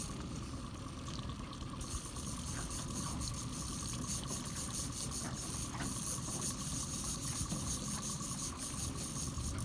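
Steady hissing wash of water around a small boat, with a faint steady high hum and a few faint ticks.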